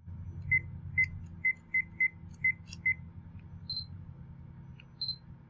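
Sony Vaio Jog Dial navigation beeps as the menu is scrolled: seven short same-pitched beeps in quick succession over about two and a half seconds. Two single higher beeps follow, about a second apart.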